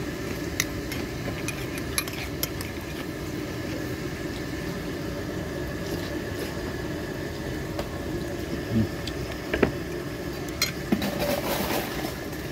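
Spoon and dishes clinking now and then against ceramic plates and a soup bowl, with a few louder clinks near the end, over a steady low background hum.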